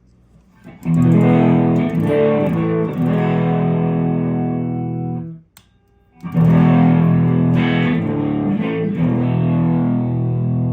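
Telecaster electric guitar played through an AionFX Sunstone phaser pedal, a clone of the EHX Small Stone, into a Fender Hot Rod Deluxe amp. A chord is strummed about a second in and left to ring, stops briefly near the middle, and a second chord is struck and left ringing.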